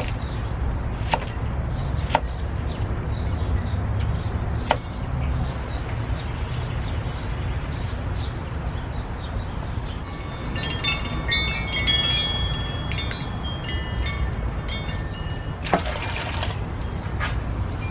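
A kitchen knife striking a wooden chopping block a few times as an onion is sliced, with birds chirping. Later, water dripping and pinging in a stainless steel bowl, then a splash near the end as a gourd scoop dips water over crabs.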